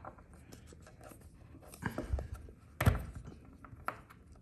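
Small clicks and knocks of a metal fidget slider and its tiny screws being handled and set down on a hard surface during disassembly, with one sharper knock about three seconds in.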